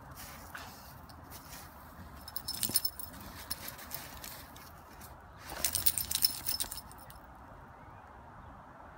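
Golden retriever's collar tags jingling in two short spells, the second louder and lasting about a second and a half, as the dog gets up from rolling in icy snow and shakes itself off.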